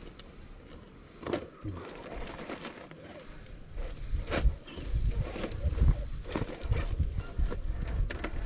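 Knocks and scrapes of a 1/10-scale RC rock crawler's tyres and chassis on rock as it creeps down a steep crevice, with a sharp knock about a second in and a louder one at about four seconds. From about halfway a low irregular rumble joins in.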